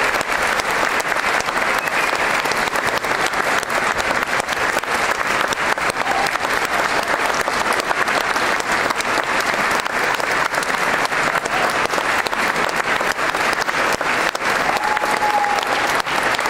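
Sustained applause from a large crowd, many hands clapping at once without let-up.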